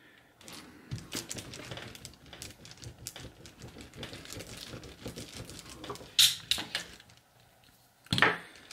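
Hand seam roller with a silicone wheel rolled firmly back and forth over fabric just heat-sealed on the table, pressing the hot weld together, giving a rapid run of small clicks and rattles. A sharper clatter comes about six seconds in.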